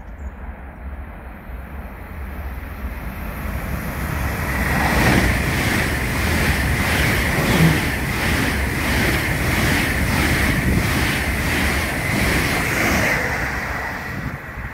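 Deutsche Bahn ICE high-speed train passing along the platform: a rush of train noise that swells about four seconds in, carries a rhythmic wheel clatter about twice a second and a steady high whine, and fades near the end. Wind buffets the microphone throughout.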